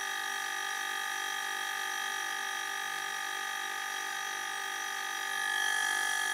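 Refrigerator compressor, used as a homemade air compressor, running steadily and pumping air into its tank to build up pressure. A steady high-pitched whine of several held tones, a little louder near the end.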